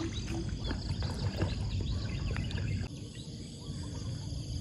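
Outdoor pond-side ambience: a steady low rumble with faint scattered chirps and ticks, which thin out and grow quieter about three seconds in.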